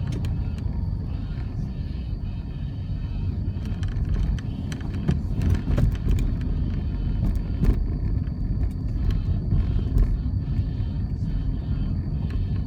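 A road vehicle driving: a steady low rumble of engine and road noise, with scattered clicks and knocks.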